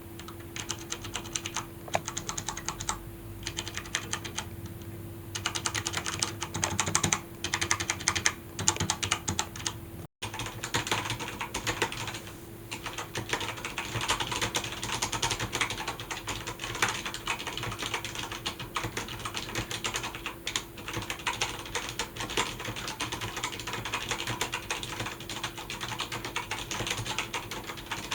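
Typing on a Logitech G710+ mechanical keyboard with Cherry MX Brown switches: a rapid stream of key clicks. The typing comes in short runs with pauses for the first ten seconds, then runs fast and continuous after a brief drop-out.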